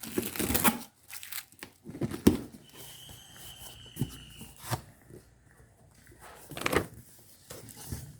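Parcel packaging being torn and crinkled open by hand, in irregular short rips and rustles.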